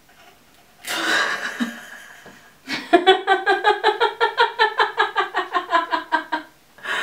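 Women laughing: a breathy outburst about a second in, then a long run of rhythmic 'ha-ha-ha' laughter at about five pulses a second, which stops just before the end.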